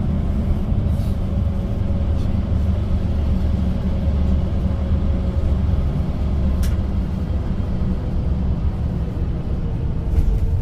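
Tour coach driving through a road tunnel, heard from inside the cabin: a steady low rumble of engine and road noise, with a faint steady whine above it and a single light click partway through.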